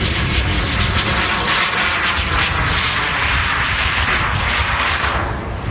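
JetCat P100 model jet turbine on a Paritech Puls scale glider flying past: a loud hiss swells up and drops away sharply near the end, over a low wind rumble on the microphone.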